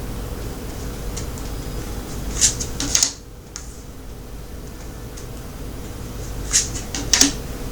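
Tarot cards being handled and laid down on a table: two short clusters of crisp card snaps and clicks, the first about two and a half seconds in and the second near the end, over a steady low hum.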